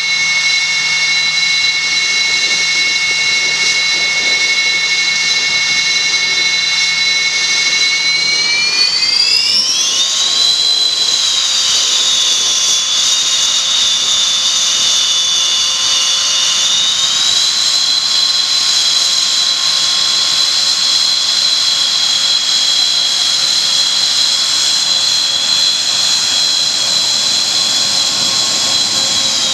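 Twin turbofan engines of a Sukhoi Su-30 fighter running on the ground with a high whine. About a third of the way in the whine rises in pitch, and it climbs a little again past halfway, as the engines are throttled up for the jet to taxi.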